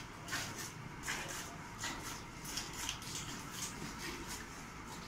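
Cow being milked by hand: short jets of milk squirting into a steel bucket, alternating hands at about two to three squirts a second.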